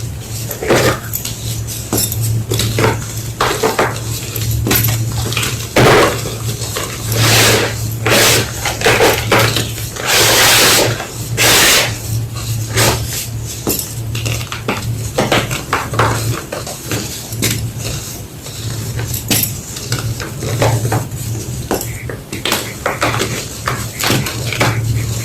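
Homemade gym chalk block being crunched and crushed: a run of short, dry, crackling crunches, with one longer, louder crumbling crunch about halfway through. A low hum runs underneath.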